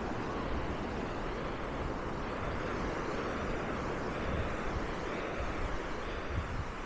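Steady wash of surf on a sandy beach, mixed with wind rumbling on the microphone.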